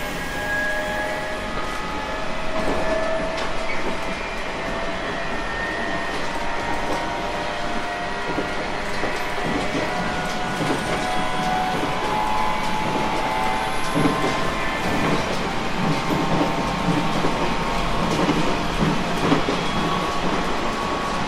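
JR East 719 series electric multiple unit heard from on board while running: steady rolling noise with several whining tones that shift slightly in pitch, and a few knocks from the wheels in the second half.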